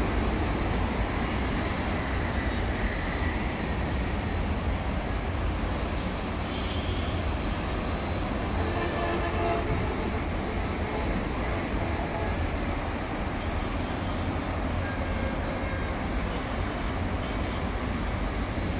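Steady road traffic with a continuous low rumble and no distinct events.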